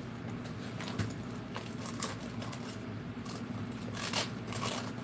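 Handling of a zippered fabric stash case: scattered scrapes and light clicks, then a short zip as it is pulled open about four seconds in.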